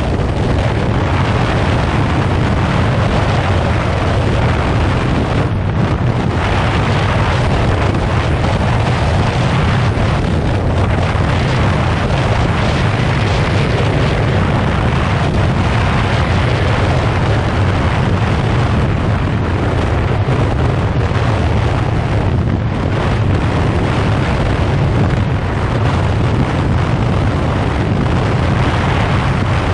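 Yamaha FZ6R's inline-four engine running at a steady cruise while riding, under heavy wind rush on the microphone.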